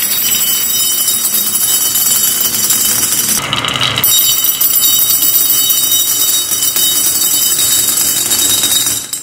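Many glass marbles rolling and clattering down a wooden zigzag track and dropping into a ceramic cup: a dense, continuous rattle with ringing clinks. It cuts off suddenly near the end.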